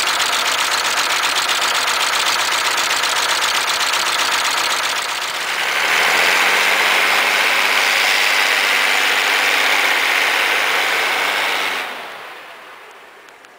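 Old Bray wheel loader's diesel engine idling, then, about five seconds in, revving up and running hard with a strong high whine as the loader drives through snow. The sound fades near the end as the loader moves away.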